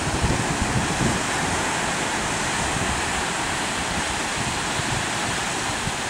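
Wind buffeting the microphone over the wash of small surf on the beach, a steady rushing noise with uneven low gusts.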